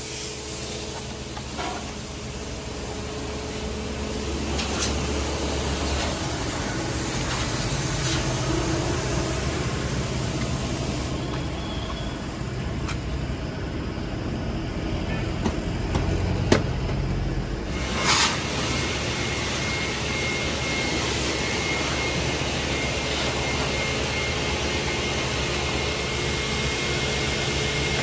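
Compressed air blasting from a blow gun to clear dirt out of a car's tight spots, a steady hiss over a low machine hum. The hiss thins out for several seconds midway, then comes back with a faint steady whine.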